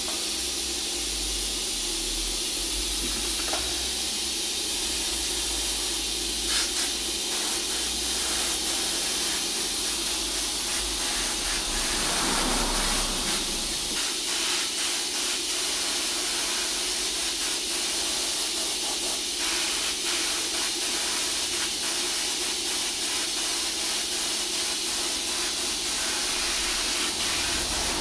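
Airbrush spraying silver paint onto a repaired alloy wheel rim: a steady hiss of compressed air, over a low steady hum.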